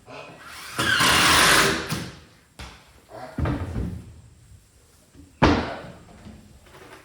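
Woodworking noises: a rough noisy burst lasting about a second, then three separate sharp knocks, like boards being handled and set down.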